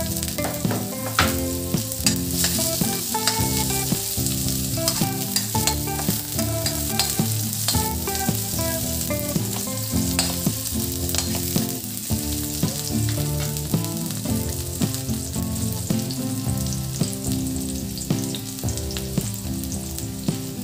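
Chopped garlic and onion sizzling in hot oil in a metal wok, stirred with a spatula, with frequent sharp clicks and crackles throughout.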